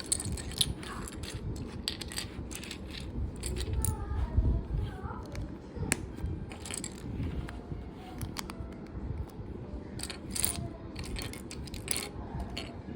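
Plastic Lego bricks clicking and clattering as they are handled, an irregular run of sharp clicks over a low rumble.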